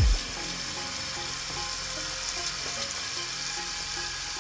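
Tap water running in a steady hiss onto a GPU water-cooler's radiator and copper cold plate in a sink, with faint background music underneath. A short low thump right at the start.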